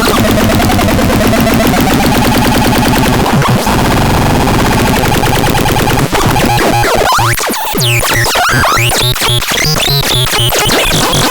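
DAZAX synthesizer playing a loud, harsh, dense electronic tone with gliding pitches. About six seconds in it changes to a rapid pulsing pattern with bending sweeps.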